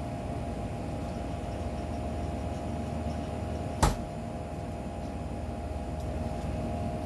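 Steady hum of a running appliance or fan, with a single sharp knock about four seconds in.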